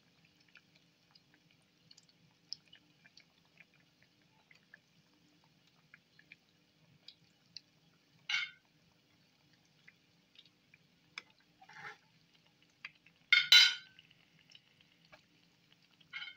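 Breaded chicken bread rolls deep-frying in hot oil, giving a quiet, steady crackle of small pops. There are two short, louder sizzling bursts about eight and thirteen seconds in as more rolls are laid into the oil, the second the loudest.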